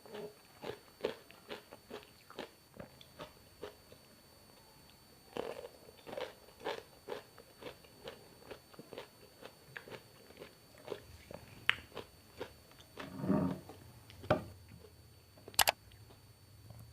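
Close-miked chewing and biting with crunchy mouthfuls, coming every fraction of a second with a pause of about two seconds a few seconds in. A single sharp click comes near the end.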